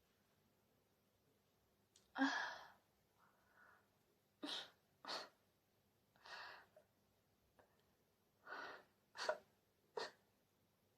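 Stomach growling: a run of about eight short, irregular gurgles and squelches spread over several seconds, the first of them the loudest.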